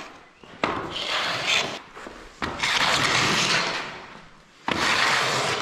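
Rustling and scrunching of bags and camping gear being handled and unpacked, in three long bursts.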